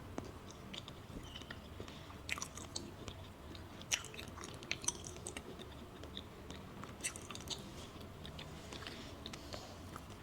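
Close-miked chewing of a soft matcha pudding crepe: wet mouth clicks and smacks that come irregularly and in small clusters.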